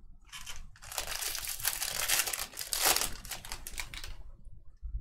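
Foil wrapper of a baseball card pack being torn open and crumpled: a dense crackle lasting about four seconds that stops abruptly near the end.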